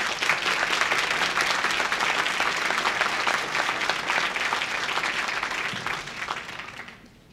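Audience applauding, many people clapping at once; the clapping dies away near the end.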